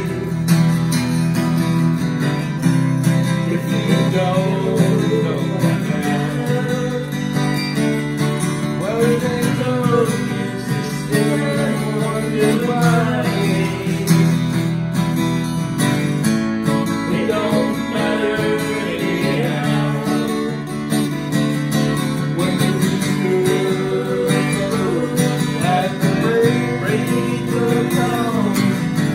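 Acoustic guitar strummed steadily with a man singing along.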